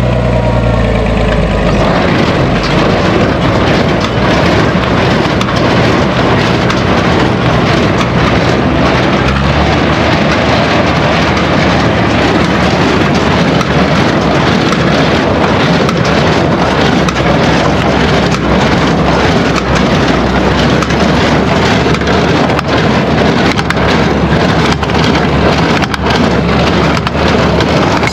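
International Farmall 460 tractor driving a New Holland 268 small square baler back into work after a knotter jam. The steady engine hum gives way, about two seconds in, to a loud, dense clatter and rustle of the baler taking in hay, with many small knocks running through it.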